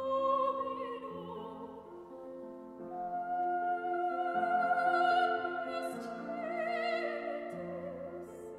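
A woman singing a classical solo in a trained, operatic style, holding long notes with vibrato. Sustained low accompaniment notes sound underneath and shift every few seconds.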